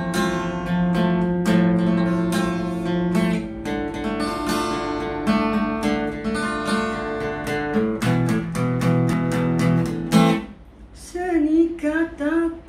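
Acoustic guitar strummed and plucked in a series of ringing chords in maqam Bayati, stopping about ten seconds in. A voice with a wavering, ornamented pitch follows near the end.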